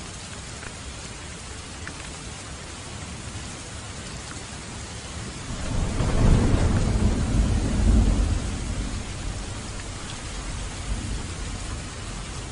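Steady rain falling, with a roll of thunder that swells about halfway through, rumbles for a couple of seconds and dies away slowly.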